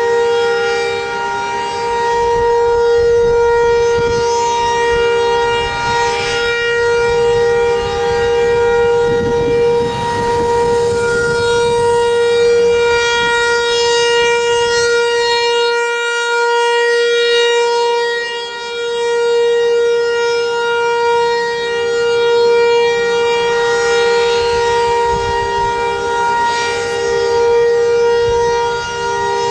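Federal Signal 508 rotating outdoor warning siren sounding a steady, loud tone. Its level swells and dips slowly as the rotating head sweeps past.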